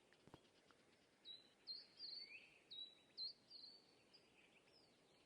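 Faint bird chirping: a run of short, high notes that each drop quickly in pitch, starting just over a second in and repeating a couple of times a second. A single faint click comes shortly before it.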